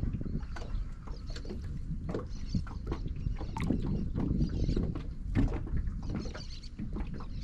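Water splashing and sloshing with a steady wind rumble on the microphone, broken by scattered small clicks and knocks.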